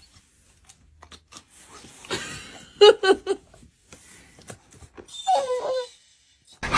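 A dog making short vocal sounds: three quick ones about three seconds in and another one a little after five seconds, with faint clicks between them.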